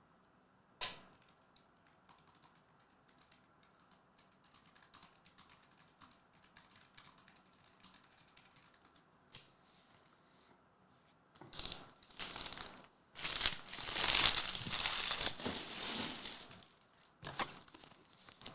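Plastic wrapping crinkling and tearing in a run of noisy bursts, loudest about two-thirds of the way in, after a single sharp click and a few faint ticks.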